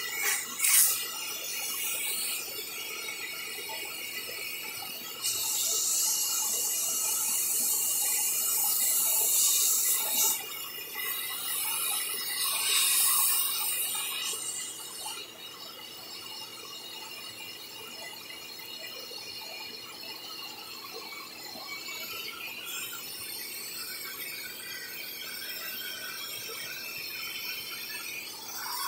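Vacuum cleaner running with a steady motor whine. The suction through its hose nozzle hisses and squeals, with two louder stretches in the first half as a capuchin monkey's lips are sucked against the nozzle and pulled off it.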